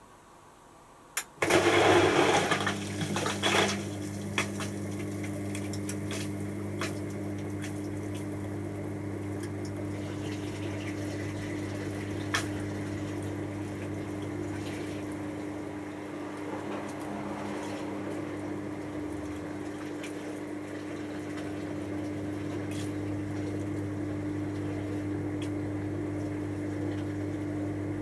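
Hotpoint HF8B593 washing machine clicking about a second in, then water rushing in, loudest for the first couple of seconds and settling into a steady flow with a constant low hum: cold water being let in to cool the 90 °C wash.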